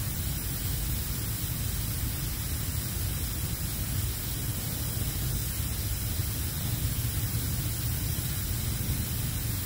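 Coleman gas stove burner running at full flame, a steady hiss, as it heats a pot of water to the boil.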